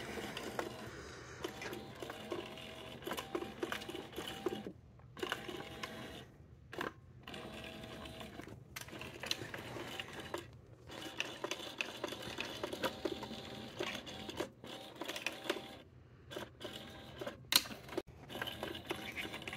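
Small electric motor inside a whack-a-mole cat toy whirring in short spells, stopping and starting again several times as it pushes feather wands in and out of the box's holes.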